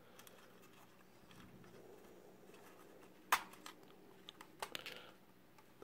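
Plastic case and circuit board of a Chinese MF47 analogue multimeter being handled and unclipped by hand: faint rubbing with a sharp plastic click a little past halfway, then a quick run of smaller clicks about a second later.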